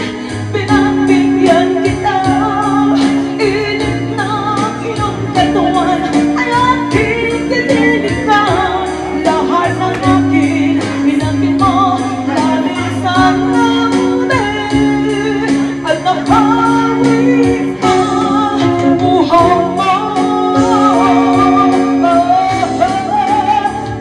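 A woman singing a song into a microphone, holding notes with vibrato, over amplified electric guitar, bass and a steady beat.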